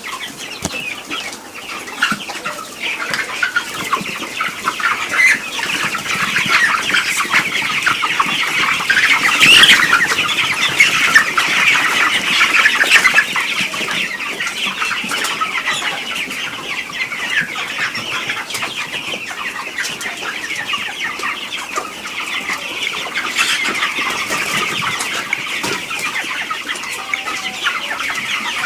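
A flock of broiler chickens calling all at once, a dense chatter of many short overlapping cheeps and clucks that swells to its loudest about a third of the way in and then holds steady.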